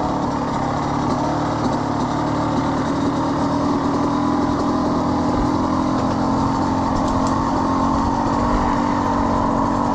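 Kawasaki KX100 two-stroke dirt bike engine running at a low, steady speed, with little change in throttle.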